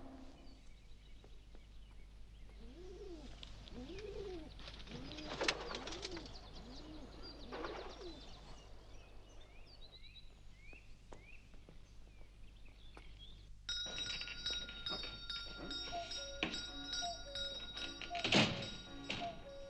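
Doves cooing in a slow repeated series, with small birds chirping and an occasional thunk. About fourteen seconds in, music starts suddenly, with steady sustained notes and a sharp hit near the end.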